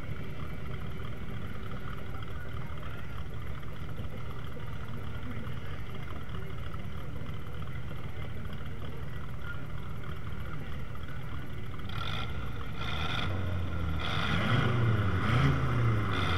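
Car engines at a car race: a steady low rumble, then in the last few seconds a nearby engine revving louder, its pitch swinging up and down.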